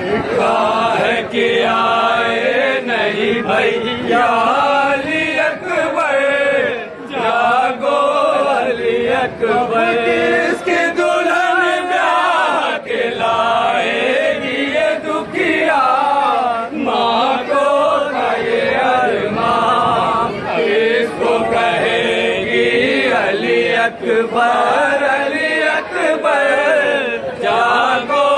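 Crowd of men chanting a Muharram nauha (mourning lament) together, with the sharp slaps of hands beating on chests (matam) cutting through the chant again and again.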